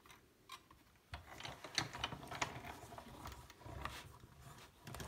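Stampin' Up! hand-cranked die-cutting machine being turned, rolling the cutting plates and die through with a steady mechanical rattle and small clicks, starting about a second in.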